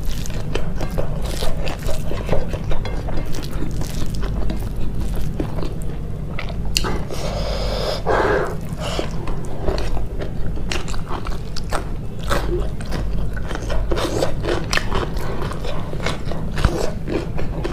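Close-miked mukbang eating: a person biting and chewing food, with irregular crunches and small wet clicks, over a steady low hum.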